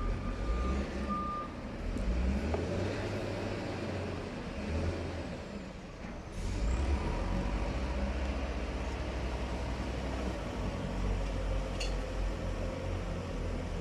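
Heavy diesel machinery running at a work site, a steady low engine rumble that eases off about six seconds in and then picks up again. A steady high tone cuts off about a second and a half in.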